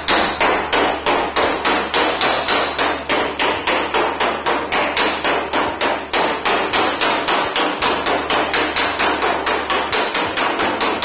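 Hammer striking the welded sheet-steel firewall of a 1970 Valiant in rapid, even blows, about five a second, with a metallic ring.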